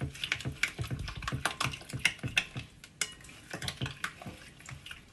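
A hand mixing a thick yogurt and spice marinade in a glass bowl: irregular wet squishing strokes with light taps against the glass, a few a second.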